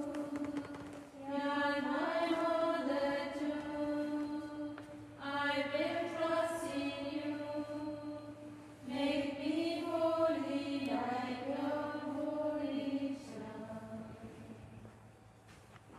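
Small group of religious sisters singing a slow hymn together, women's voices on a single melody in three long phrases with short breath pauses between them, fading over the last few seconds. A faint steady low hum sits underneath.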